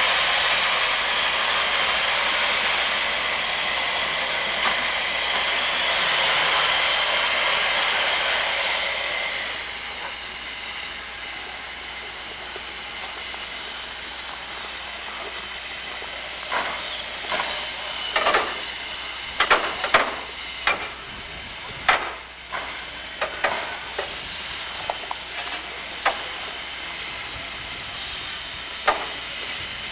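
Loud steady hiss around a steam locomotive on an air-powered turntable, cutting off suddenly about nine or ten seconds in. Then a run of sharp metallic clanks and knocks over several seconds, with one more near the end.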